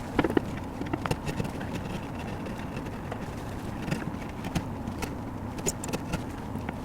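Hand V chisel cutting into walnut to carve a moulding profile, heard as irregular short scrapes and clicks over a steady low hum.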